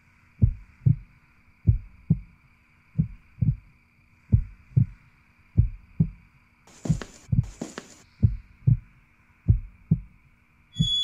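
Heartbeat sound effect: pairs of low, dull thumps (lub-dub) repeating at a slow, even pace, used as a suspense cue. About seven seconds in, two short hissing noises sound over the beat.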